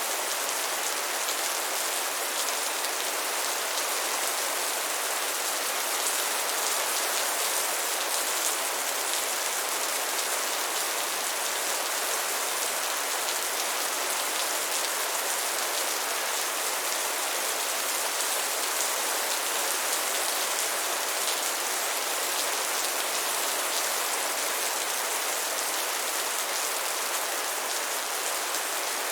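Heavy rain downpour: a steady, dense hiss of rain falling on surfaces, with fine patter of individual drops and no let-up.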